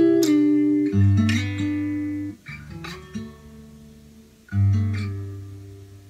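1979 Sigma DM18 acoustic guitar with a solid spruce top, fingerpicked: a few plucked notes, then a chord with a strong bass that rings and slowly fades, and another chord struck about four and a half seconds in that rings out and decays.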